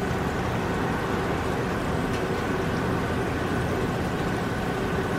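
Floured salmon chunks deep-frying in hot oil, the oil bubbling and sizzling steadily.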